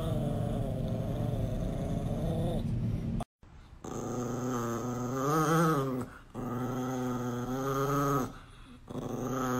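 Chihuahua growling in long, drawn-out growls with short breaks between them. The sound cuts out briefly a little over three seconds in.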